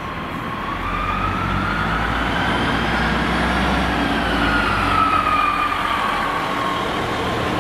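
Class 153 diesel railcars running past along the platform: a low engine rumble under a whine that slowly rises in pitch, then falls away in the second half.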